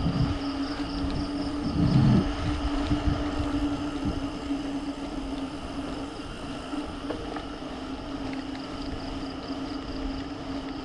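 Mountain bike rolling along an asphalt road: wind rushing over the handlebar-mounted camera's microphone, with a steady low hum.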